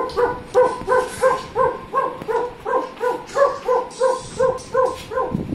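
A recording of a dog's own barking played back: a fast, even run of short barks, about two or three a second, each at much the same pitch.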